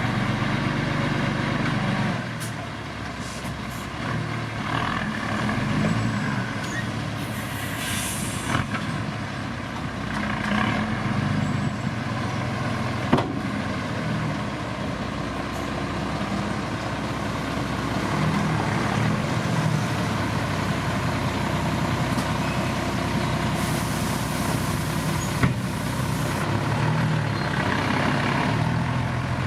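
Heavy diesel engines of road-construction machinery, a dump truck among them, running steadily, with short hisses of released air near the middle and again near the end.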